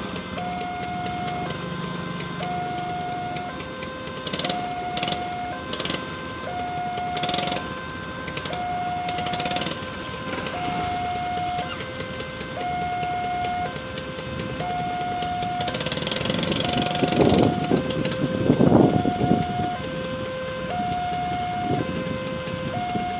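Railway level-crossing warning alarm, an electronic signal alternating a higher and a lower tone about once every two seconds, sounding steadily to warn that a train is approaching. Motorcycle engines run close by, with a louder swell of rushing noise and revving about two-thirds of the way through.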